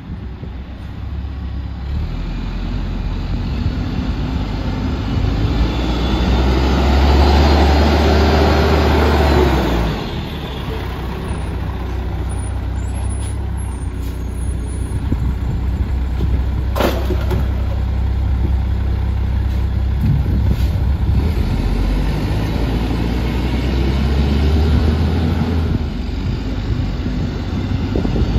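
Mack MR garbage truck with a McNeilus rear loader, its engine running and growing loudest over the first third as the truck pulls up close, then running steadily while the truck works. A single sharp clank comes a little past halfway.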